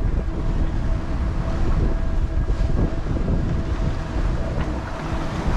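Wind buffeting the microphone with a steady rush of water along a sailboat's hull under sail.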